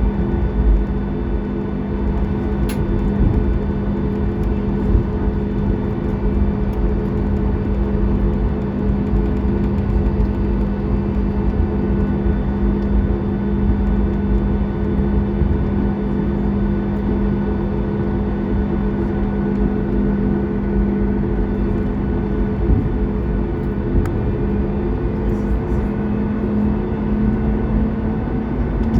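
Boeing 737 MAX 8's CFM LEAP-1B turbofan engines heard inside the cabin, running steadily with a strong hum over a low rumble. The hum rises a little in pitch near the end as the engines spool up.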